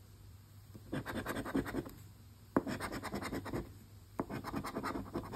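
A coin scratching the coating off a paper lottery scratch ticket, in three short bouts of rapid strokes. A sharp tap of the coin on the card about two and a half seconds in is the loudest moment.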